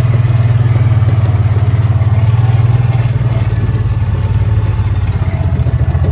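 A vehicle engine running steadily, a low throb with rapid, even pulsing.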